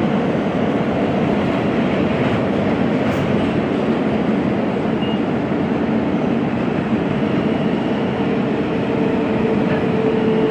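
Siemens R160B subway car running at speed through a tunnel, heard from inside the car: a steady, loud rumble of wheels on rail. A faint thin tone comes in about eight seconds in.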